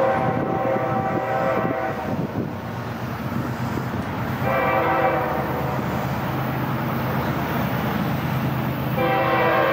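Norfolk Southern locomotive air horn sounding a chord in blasts: one held blast that stops about two seconds in, a shorter one about halfway through, and another starting near the end, over the steady rumble of the passing train.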